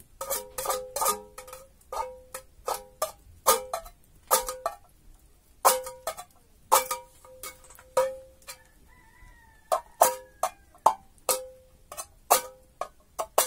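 A small metal pot knocked again and again, about two dozen irregular clinks, each ringing briefly at the same pitch.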